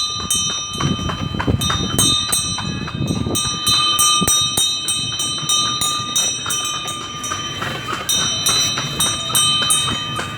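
A bell ringing loudly and fast, about four strikes a second at the same pitch, pausing briefly near the end before starting again.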